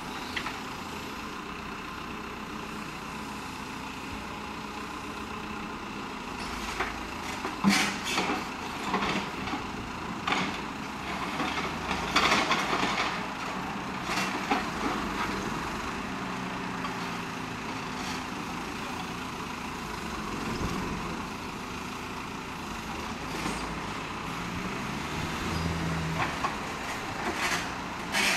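Caterpillar backhoe loader's diesel engine running steadily while it digs, with a run of knocks and scraping from the bucket in broken asphalt and rubble in the middle, and the engine note rising near the end under hydraulic load.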